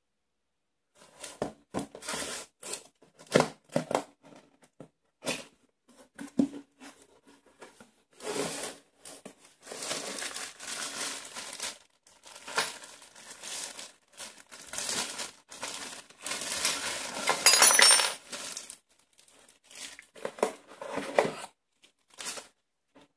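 Plastic zip bags crinkling and a cardboard box being handled, with metal accessory blades clinking inside the bags in irregular bursts.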